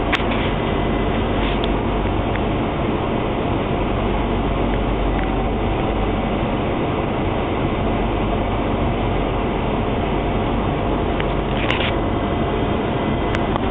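London Underground train running, heard from inside the carriage: a steady rumble and rush of wheels and motors, with a couple of brief rattles near the end.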